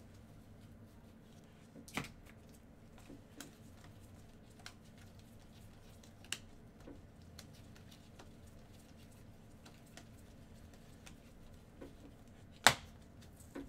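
Trading cards being flipped through and sorted by gloved hands: scattered light clicks and taps of card edges against the stack, with a sharper snap of a card near the end.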